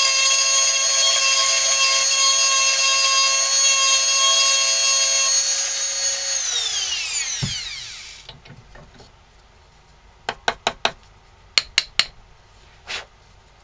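Dremel rotary tool running at high speed with a steady high whine while carving wood, switched off about six seconds in and winding down in a falling whine over about two seconds. Then a quick run of sharp clicks and knocks, with one more near the end.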